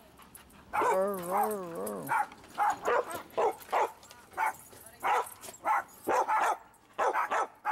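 A dog giving a long howl with a wavering pitch about a second in, then barking over and over in short, quick yaps.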